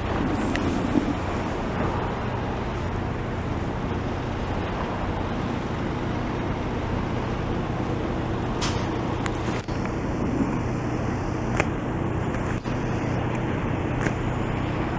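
Steady low drone of heavy engines and road traffic, with a few light clicks in the second half.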